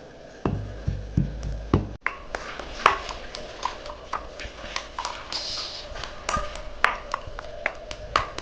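A wooden pestle pounding in a white ceramic mortar: a run of knocks, about three a second. The first few are dull thuds; after a break about two seconds in they turn sharp and clicky.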